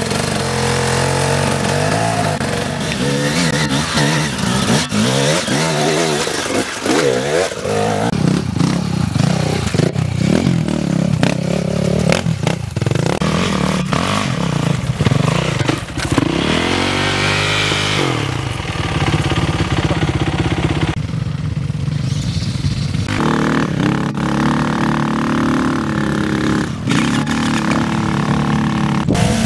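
Enduro dirt-bike engines revving hard and falling back again and again as the bikes claw up steep, rough slopes, the pitch rising and dropping every few seconds.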